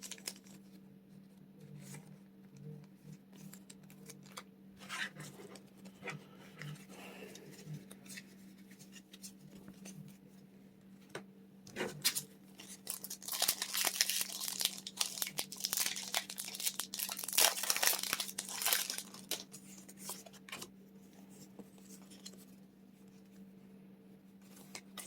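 Light handling clicks and rustles of Pokémon cards and plastic card sleeves. About halfway in, a foil booster pack's wrapper crinkles and tears loudly for several seconds as it is torn open. A faint steady hum sits underneath.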